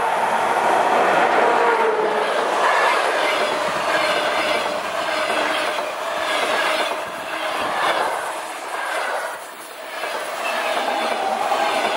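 A ChS2T electric locomotive and its passenger coaches passing at speed close by. The wheels clatter over the rail joints in a steady rhythm of loud groups as the coaches go by.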